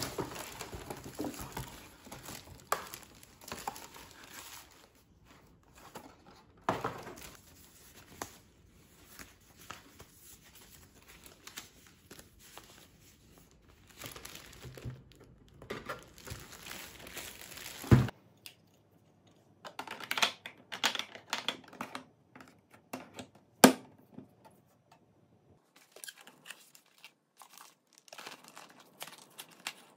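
Plastic wrapping and cardboard packaging crinkling and rustling as a coffee machine is unboxed by hand, with a couple of sharp knocks in the second half.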